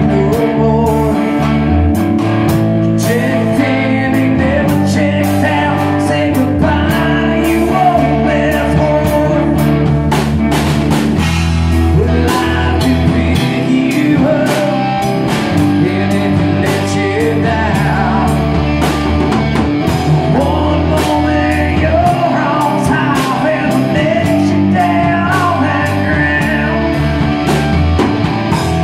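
A rock band rehearsing a blues-rock song: guitar and drum kit playing with a singer, the drums keeping a steady beat throughout.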